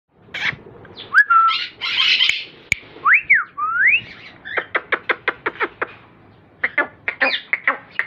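Alexandrine parakeet calling: a few whistled notes that glide up and down in pitch, then a fast run of short calls at about seven a second, and a few more calls near the end.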